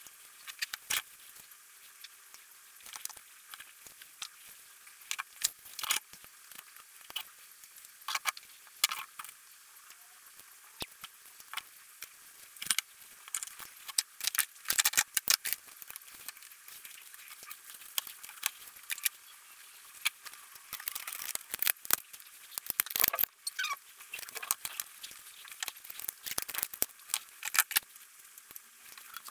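Irregular small clicks, taps and rustles of hands handling a switch-mode power supply board, a thermal paste tub and the board's aluminium case as the board is fitted back into the case, busiest about two thirds of the way in.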